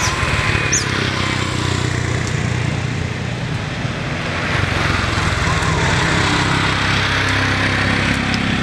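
A motor vehicle engine running steadily, a little louder from about halfway through, with a few short bird chirps.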